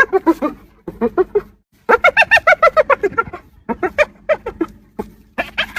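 Spotted hyena giggling: bouts of quick, high, rising-and-falling yelping notes, several a second, broken by short pauses.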